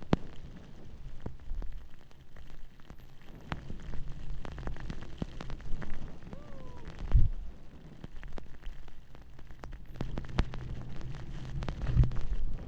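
Skis running through snow, with a steady hiss and many sharp crackles and clicks. Wind buffets the microphone in low rumbles that swell about halfway through and near the end.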